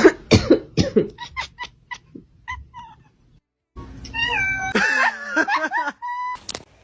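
A cat meowing: a quick run of short cries, then after a brief gap longer wavering cries.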